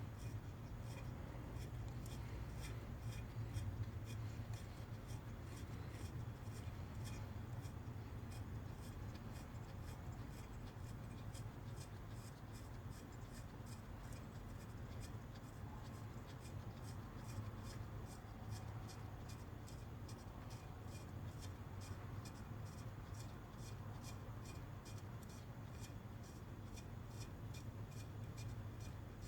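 Faint hand-tool work on an engine bolt: a wrench scraping and clicking, with a steady run of faint clicks over a low, steady hum.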